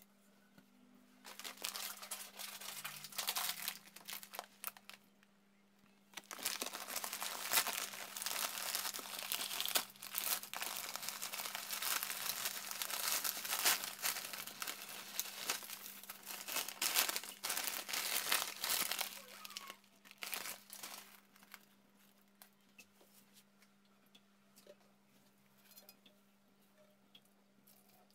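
Crinkling and tearing of a packet of dry rice vermicelli as it is opened and the brittle noodle block is handled. The crackling stops and starts, goes on in a long stretch, then dies away to faint ticks for the last several seconds, over a steady low hum.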